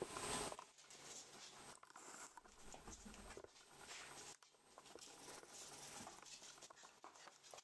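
Faint, scattered light patter and ticking of a rough collie puppy's paws and claws on a laminate floor. A louder rustling noise cuts off about half a second in.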